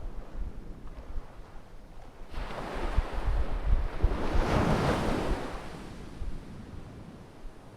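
Ocean waves: one wave breaks and washes in, swelling from about two seconds in, loudest around the middle, then fading away. Low wind buffeting on the microphone underneath.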